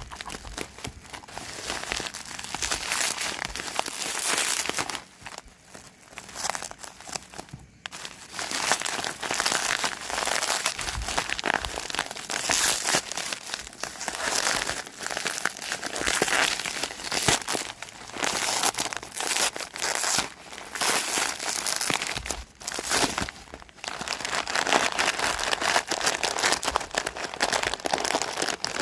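Packaging being crumpled, crinkled and torn open by hand, in stretches broken by short pauses.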